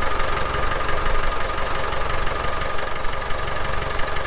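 Farm tractor engine running steadily at low revs, with a close, even pulsing and a faint steady whine above it.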